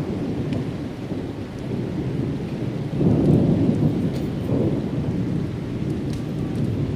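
Thunder rumbling during a rainstorm. The rumble swells to its loudest about three seconds in and then slowly fades.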